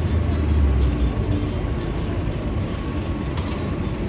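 City street traffic noise. A vehicle's low engine sound is loudest in about the first second and then fades into the steady traffic haze. There is a brief click about three and a half seconds in.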